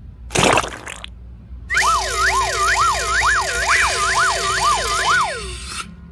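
A short whoosh, then a siren-like tone wailing up and down in pitch about two to three times a second for about four seconds.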